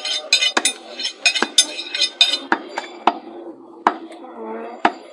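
A knife drawn rapidly back and forth along a large cleaver's blade, a quick run of metal-on-metal scrapes and clinks, then the cleaver chopping beef on a wooden stump block, about five sharp chops in the second half. Low voices murmur underneath.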